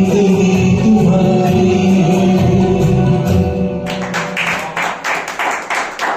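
A karaoke backing track with singing on long held notes, which stops about four seconds in. Clapping follows, about four claps a second.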